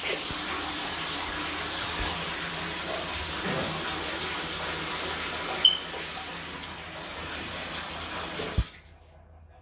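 Water running steadily from a tap, then shut off abruptly near the end. A short high beep sounds about six seconds in.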